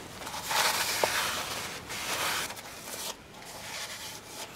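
A Scotch-Brite scouring pad scrubbing carbon deposits off the piston tops in the bores of a Ford Falcon straight-six engine block, in several uneven strokes. The strokes are loudest during the first second or two.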